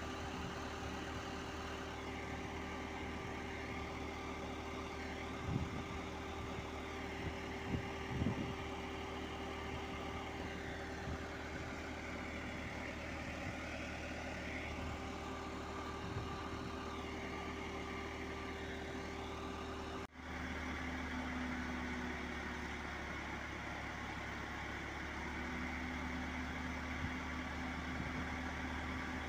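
Bucket truck's diesel engine idling steadily with a constant hum, running to power the hydraulic boom. The sound drops out for an instant about twenty seconds in, after which a lower hum comes and goes over the idle.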